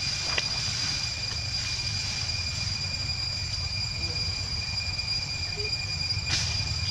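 Steady background noise: a constant low rumble under two steady high-pitched tones, with a faint click about half a second in and another near the end.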